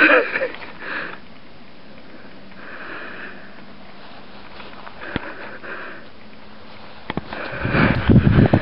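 Short sniffing breaths close to the microphone, a loud one at the start and fainter ones every second or two. From about seven seconds in, loud rumbling wind and handling noise on the microphone.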